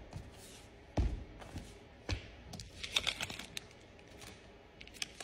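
Books and papers handled on a desk: a dull thud about a second in as a book is set down, a softer knock a second later, then paper and card rustling and crinkling.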